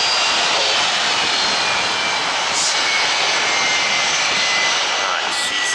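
Jet airliner engines running steadily, a broad rushing noise with a faint high whine that slowly drops in pitch.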